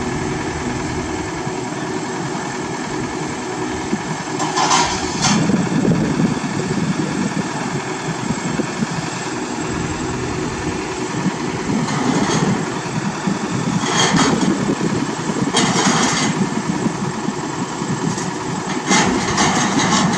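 Kobelco SK200 hydraulic excavator's diesel engine running steadily, surging under load several times as the arm and bucket work. Several short, harsh bursts of higher-pitched noise come over it.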